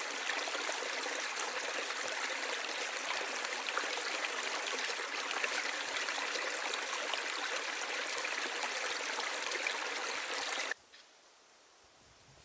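Stream water running steadily with a constant rushing sound. It cuts off abruptly about three-quarters of the way through, leaving only a faint background.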